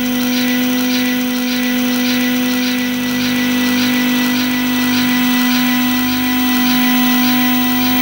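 Analog electronic noise music: a loud, steady low drone with thin steady tones above it and a fast, regular pulsing hiss on top.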